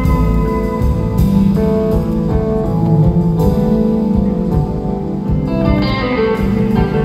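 Live jazz-rock fusion band playing: electric guitar lines over bass, keyboards and drums, heard through the hall from the audience.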